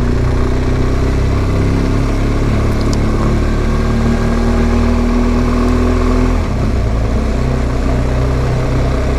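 BMW R1200GS boxer-twin engine running under way, heard from the bike. Its note changes about six seconds in, then settles again.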